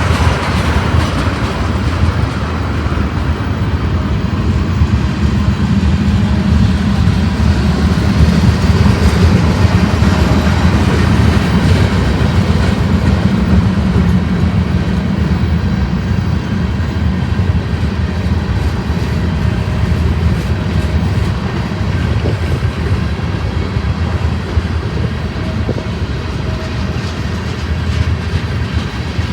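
Freight train rolling past, its cars running steadily over the rails, loudest a third of the way through.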